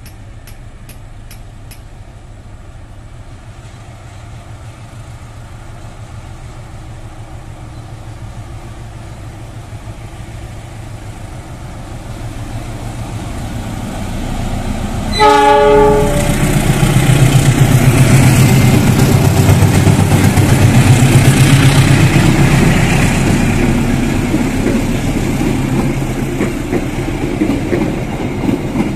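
KAI CC 206 diesel-electric locomotive hauling the Purwojaya passenger train: its engine rumble grows as it approaches, it gives one short horn blast about halfway through, then it passes close with a loud engine drone and the rattle of wheels over the rails, easing off slightly near the end.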